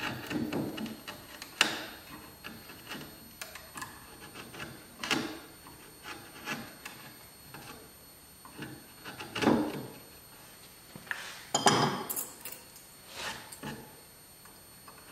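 Bench chisel paring walnut to clean up a routed hinge mortise in a door's edge: irregular scrapes of steel on wood with several sharper knocks, the loudest a little after two thirds of the way through.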